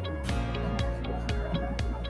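Background music with a steady beat and low bass notes.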